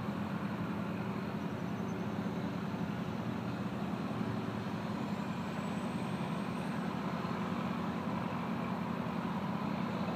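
A heavy engine running steadily, a low, even drone with no change in speed.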